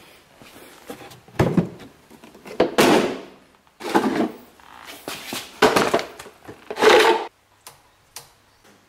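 Hard plastic clunks and rattles of a Stihl Farm Boss chainsaw and its plastic carry case being handled on a concrete floor: five loud knocks and clatters about a second apart, then a few light ticks near the end.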